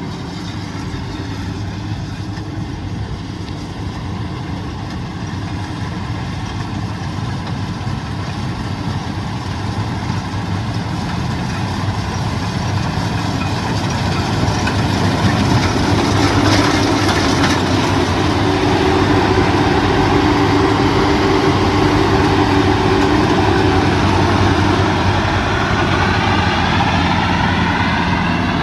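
Rice combine harvester's engine running steadily, getting louder about halfway through and then holding at that level.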